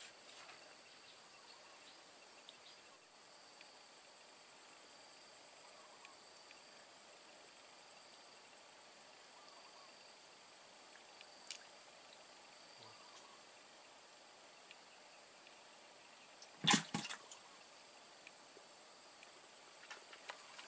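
Steady high-pitched drone of insects over a swamp. Near the end, one brief sharp noise with a couple of smaller ones after it stands out above the drone.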